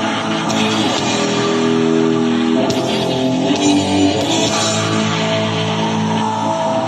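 Metal band playing live: electric guitars hold long sustained notes, with bright high bursts coming and going over them.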